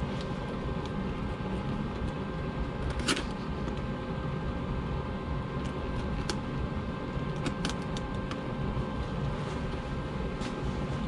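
Steady machine hum with a few pitched tones, over which a blade makes several short, sharp cutting and scraping clicks as it is worked along the edge of a boot's sole; the sharpest comes about three seconds in.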